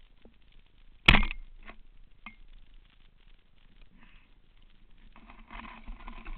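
Speargun fired underwater: a single sharp crack with a short ringing tail about a second in, followed by a couple of faint clicks and a rough rustling noise near the end.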